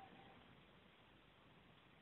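Near silence: faint, steady hiss of room tone.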